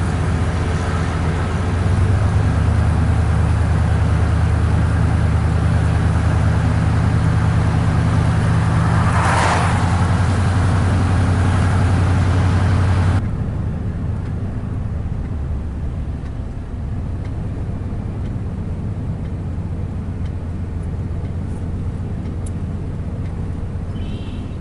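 Steady engine hum and road noise inside a moving truck's cab. A brief swell of noise comes about nine seconds in. About thirteen seconds in the sound drops suddenly to a quieter, duller hum.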